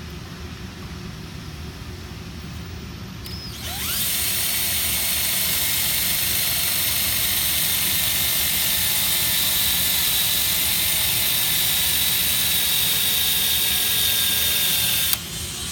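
Electric hand drill spinning up with a rising whine about three and a half seconds in, then running steadily at speed as it bores a hole through clamped, oiled metal, and stopping abruptly near the end.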